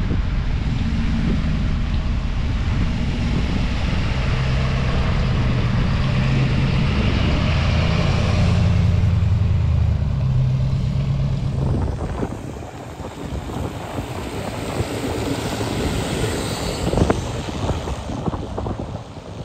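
Lifted Ford Excursion super jeep on oversized low-pressure tyres pulling away, its engine running with a low drone that swells to its loudest about nine seconds in and then fades. From about twelve seconds on, tyres hiss on the wet road as it drives off, with wind on the microphone and a sharp knock near the end.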